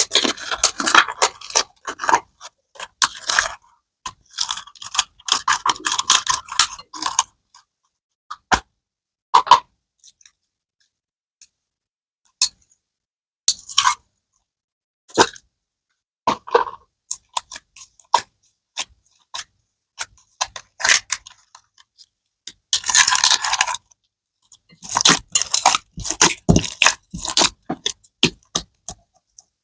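Slime being pressed and squished by hand: clusters of sharp, crackling pops and clicks from trapped air, separated by quieter gaps with only the odd single pop.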